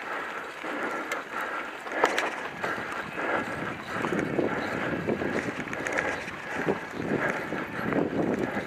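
Mountain bike rolling along a dirt forest trail: a continuous rumble of tyres and wind on the microphone, with irregular knocks and rattles from bumps, the sharpest about two seconds in.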